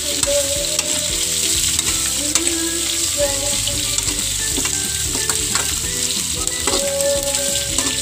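Pork chunks and onions sizzling steadily in hot oil in a wok, stirred with a spatula that clicks and scrapes against the pan now and then.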